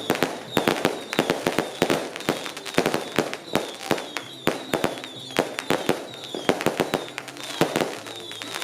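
Firecrackers going off in rapid, irregular sharp bangs, several a second, the firecracker salute that greets a deity's procession at a Taiwanese temple festival.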